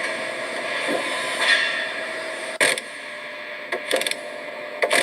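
Steady industrial machinery noise, with sharp knocks about two and a half seconds in, twice near four seconds, and again near the end.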